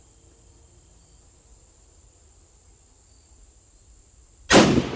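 A steady high insect buzz, then, near the end, a single 6.5 Grendel rifle shot, sharp and loud, with a long fading echo after it.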